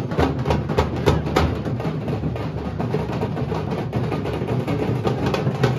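Nasik dhol ensemble: several large barrel dhols beaten with sticks, with large hand cymbals clashing, in a dense, driving beat.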